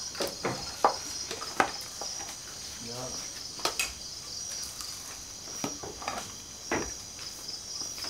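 Steady high chirring of night insects with a regular pulse, under several sharp clinks and scrapes of spoons against plates as food is dished out, the loudest in the first two seconds.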